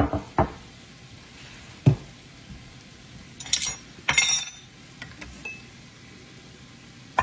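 Glass and dishes clinking and knocking several times, with a brighter clatter about three and a half to four and a half seconds in, over a faint steady sizzle of diced carrots frying in hot olive oil in the pot.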